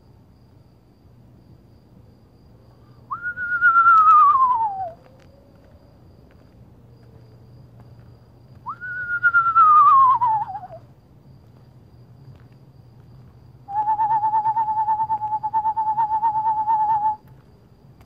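Whistled imitation of eastern screech owl calls: two whinnies about 3 and 9 seconds in, each jumping up and then sliding down in pitch, then a level, fast-pulsing trill held for about three seconds near the end. These calls are meant to lure a screech owl closer.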